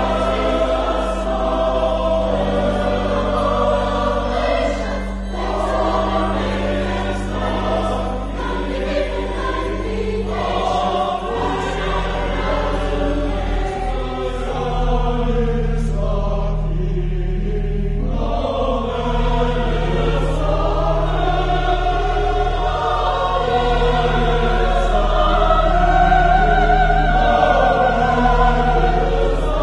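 Choir singing with instrumental accompaniment, held low notes sustained under the voices; the bass notes shift about eleven seconds in and the singing swells louder near the end.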